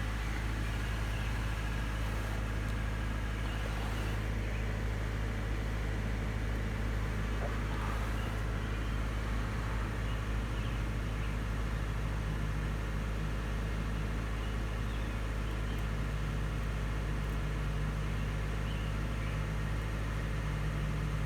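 2013 Subaru Impreza's flat-four engine idling steadily, running again after a cranks-but-no-start fault traced to an unplugged crank sensor connector.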